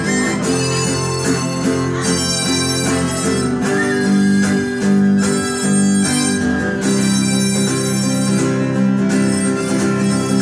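Live acoustic band playing an instrumental passage: a harmonica plays the lead over acoustic guitars strumming a steady rhythm.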